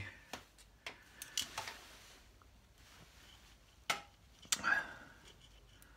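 A few scattered light metallic clicks and taps from hands handling the wiring and small metal fittings around the points plate on the motorcycle engine's timing side.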